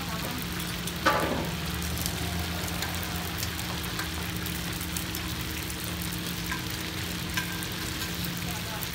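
Pan-fried stuffed buns (shuijianbao) sizzling in oil on a large round griddle pan as more are set down with metal tongs, with light clicks of the tongs throughout and a louder clack about a second in.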